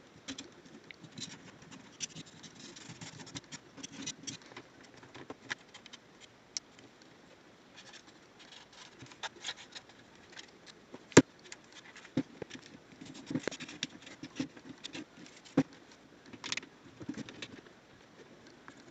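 A sharp pointed tool scratching and picking along the seams of a PlayStation 2 controller's plastic shell to dig dirt out of the cracks, with scattered small clicks and taps throughout and one sharper click about eleven seconds in.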